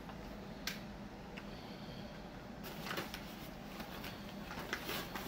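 Light clicks and rustling of toy car blister packs, plastic bubbles on card backs, being handled and set down on a desk. One sharp click comes less than a second in, with more handling noise around three seconds in and again near the end.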